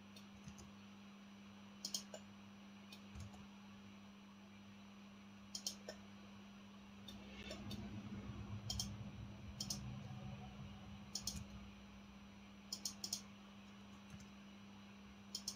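Computer mouse button clicks, short and sharp, a few seconds apart and sometimes in quick pairs, over a faint steady electrical hum. In the middle comes a low rumbling rustle lasting a few seconds.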